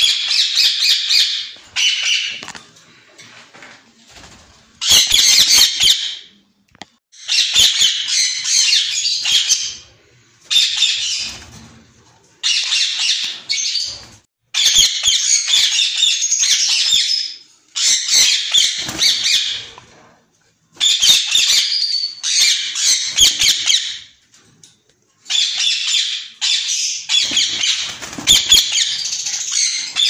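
Indian ringneck parakeets calling loudly in high-pitched bursts of one to three seconds, about a dozen in all, with short pauses between them.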